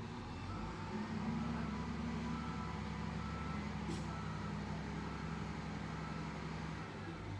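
SDLG wheel loader's diesel engine running under load as the machine reverses, building about a second in and easing near the end, with its reversing alarm beeping faintly over it.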